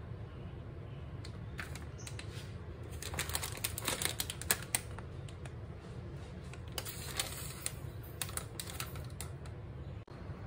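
Crackling and clicking of a plastic coriander-powder pouch being handled while a metal measuring scoop digs the ground spice out of it, in two clusters a few seconds apart, over a steady low hum.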